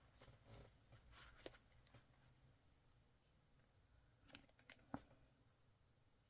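Near silence with a few faint, short clicks and taps from handling craft materials, the sharpest about five seconds in.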